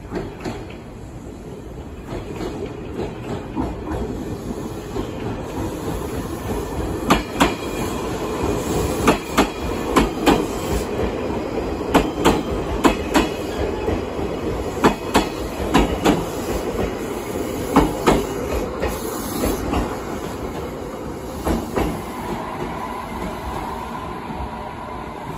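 JR Kyushu 817 series electric train running past, its wheels clattering over rail joints and points in a long run of sharp, uneven knocks.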